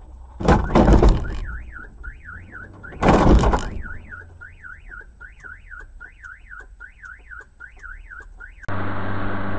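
Two loud crashing impacts, about half a second and three seconds in, with a car alarm sounding in quick rising-and-falling sweeps between and after them. Near the end everything gives way abruptly to a steady hum.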